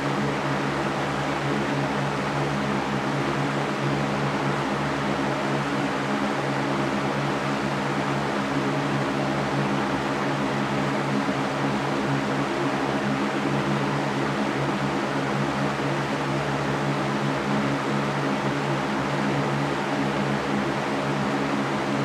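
Large wire-caged floor fan running steadily: an even rush of air with a low hum under it.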